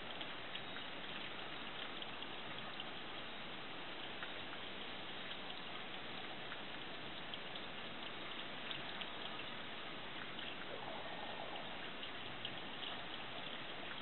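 Steady rain falling outside a window: an even hiss with scattered ticks of individual drops.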